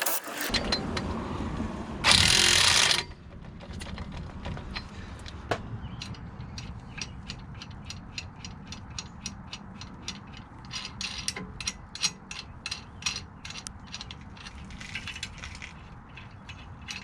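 Hand ratchet wrench clicking in a steady run of about three clicks a second while tightening nuts onto the wheel spacer's studs. Near the start there is a loud burst of noise lasting about a second.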